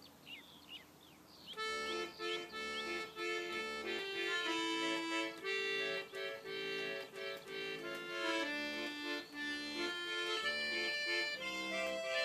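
Birds chirping, then about a second and a half in a hand-cranked street organ starts up and plays a reedy, accordion-like tune of held notes. The birds chirp on faintly behind it.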